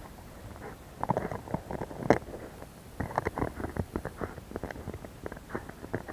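Belgian Malinois chewing a plastic frisbee: quick, irregular crunches and clicks of teeth on the disc, with one sharp crack about two seconds in.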